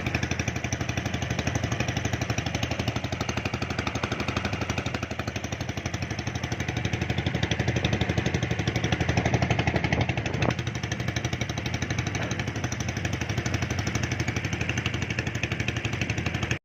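Small motorcycle engine running steadily while riding, with a fast even pulse. The sound cuts off suddenly at the end.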